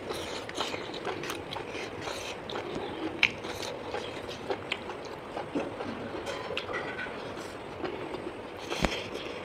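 A person chewing and biting food close to the microphone, with irregular crunches and clicks.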